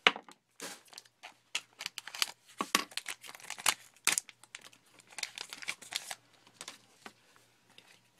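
Trading card packs being cut open with a razor blade, their wrappers crinkling in an irregular run of sharp crackles that thins out near the end.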